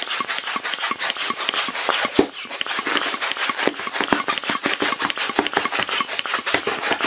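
Green plastic hand balloon pump worked in rapid, even strokes, each stroke a rasping rush of air, with a short break a little after two seconds in. The pump is pre-inflating a clear globe balloon to stretch it out and open its seams.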